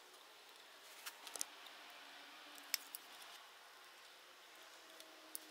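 Faint, scattered clicks of small hand tools (a long metal tool, then a screwdriver) working on the wiring and circuit board inside a plastic junction box, as the loop antenna's electronics are put back together. A cluster of clicks comes about a second in, two more near the three-second mark, and one near the end.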